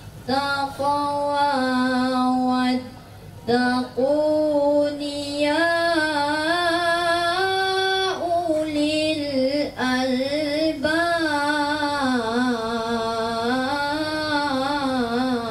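A single high voice singing slow, drawn-out melodic lines in long held notes with wavering, ornamented pitch. It breaks off briefly about three seconds in and again near ten seconds.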